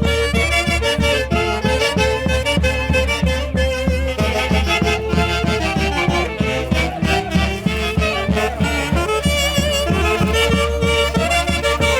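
Peruvian orquesta típica playing Santiago festival music: a reedy wind melody over a steady, driving beat.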